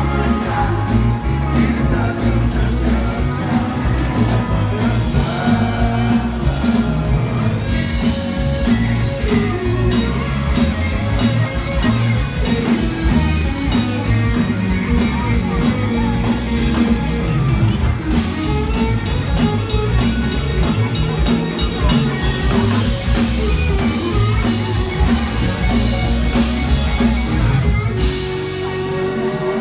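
Live country-rock band playing an instrumental break, with an electric guitar solo over drums and bass. Near the end the drums drop out, leaving held notes.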